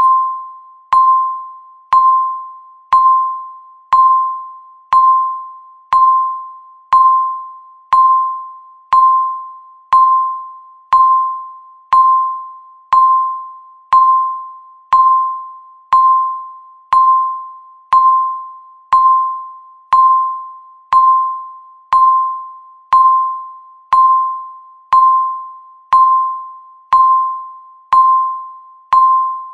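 Countdown timer beeping once a second, each beep a single clear electronic tone that starts sharply and fades away before the next.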